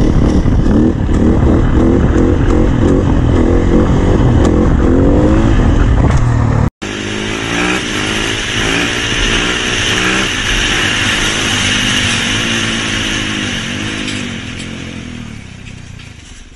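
Dirt bike engine revving hard, its pitch rising and dropping repeatedly, with a heavy low rumble. About seven seconds in it cuts off sharply and a second motorcycle engine takes over, quieter, its revs rising and falling as it fades away near the end.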